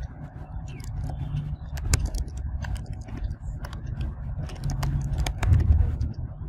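Irregular clicks of a computer keyboard being typed on, over a steady low rumble.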